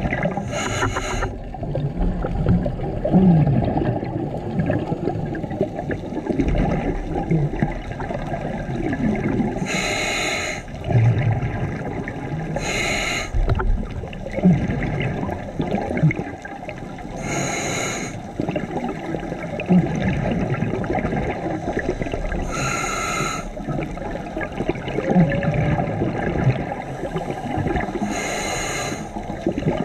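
Scuba regulator breathing underwater: six short hisses of the demand valve on inhalation, with exhaled bubbles gurgling steadily between them.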